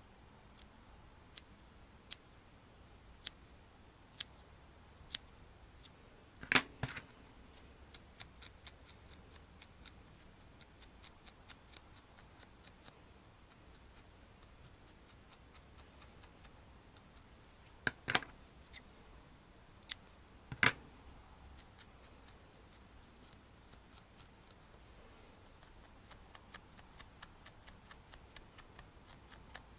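Small sharp-pointed scissors snipping wool fibres, sharp separate clicks about one a second, with a few louder snips. Between them come runs of quick, faint ticks from a felting needle stabbing into the felted wool.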